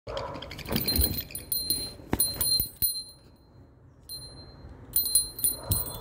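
A small brass bell toy jingling in repeated short bursts of high, clear ringing as an Alexandrine parakeet plays with it and tosses it about, with a few dull knocks.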